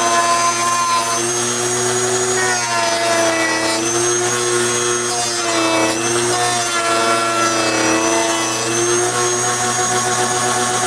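Dremel rotary tool running and sanding the corners of a Kydex holster, a steady whine that dips and rises in pitch as it bears into the plastic.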